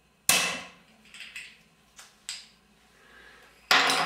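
Crown cap levered off a bottle of homebrewed wheat beer with a bottle opener: a sharp pop about a third of a second in, then a few light clicks, and a louder clatter near the end.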